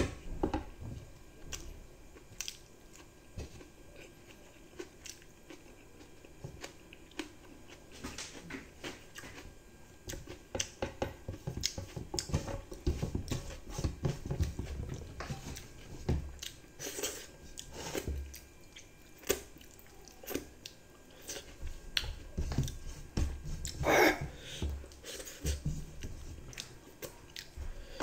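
Close-up chewing and mouth sounds of a person eating fried egg with dal and rice by hand, along with fingers working the food on the plate. The sounds come as irregular small clicks and soft thumps, with one louder sharp click near the end.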